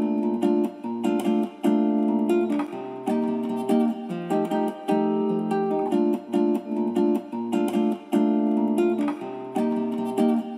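Background music led by a plucked and strummed acoustic guitar, with notes changing in a quick, steady rhythm.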